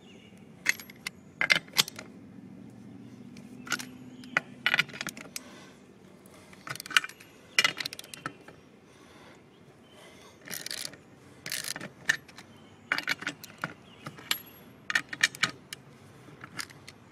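Ratchet wrench and socket loosening the lug nuts on a garden tractor's rear wheel: irregular clusters of short metallic ratchet clicks and clinks.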